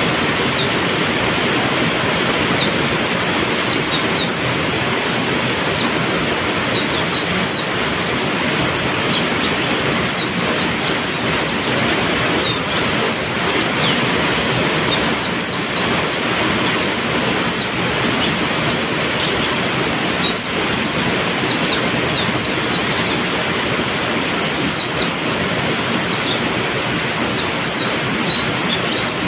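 Heavy rain falling steadily, with a white-eye (pleci) chirping through it in quick clusters of short, high notes.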